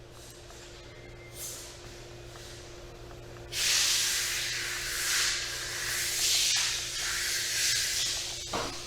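A loud hiss, like air or spray rushing out, starts about three and a half seconds in, lasts about five seconds and wavers in strength, over a faint steady hum.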